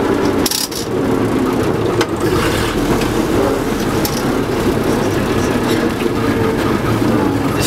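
Engine of a 1927 vintage bus running steadily as the bus drives along, heard from inside the passenger saloon, with a few sharp knocks from the body, the first about half a second in.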